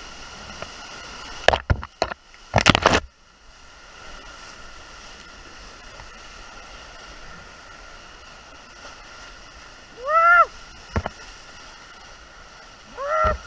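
Rushing, muddy floodwater of a small creek heard from an open canoe running it, a steady wash of moving water. A few sharp knocks and splashes come between about one and three seconds in. A short call rises and falls about ten seconds in, and a run of short calls starts near the end.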